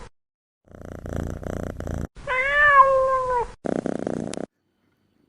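A cat purring, broken by one long meow, then purring briefly again before the sound cuts off suddenly.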